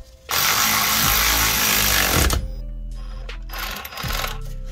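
Hercules cordless power tool running in two bursts as it drives the brake master cylinder's mounting nuts. The first burst lasts about two seconds; a shorter, weaker one follows about a second later.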